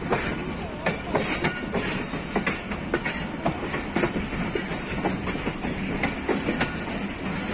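Passenger train coaches rolling slowly into a station, heard from on board: wheels clatter over rail joints and points in irregular clicks and clanks over a steady rumble, with a few short wheel squeals near the start.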